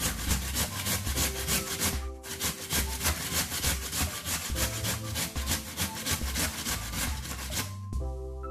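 Raw potato rubbed up and down a stainless steel box grater: a quick, even rhythm of rasping strokes, pausing briefly about two seconds in and again near the end.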